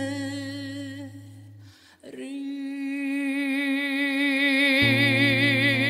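Male ballad singer holding a long note with wide vibrato over a sustained low accompaniment note. The accompaniment drops away about two seconds in and a new long vibrato note begins and swells, with low held chords coming back in near the end.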